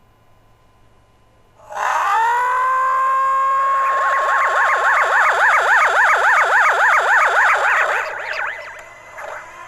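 A loud, siren-like wail. It glides up quickly to a steady high tone, then warbles rapidly up and down about four times a second before fading near the end.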